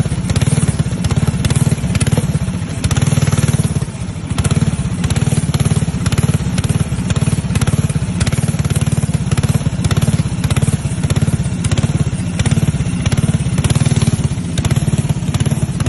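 Engine running steadily with a rapid, even pulse.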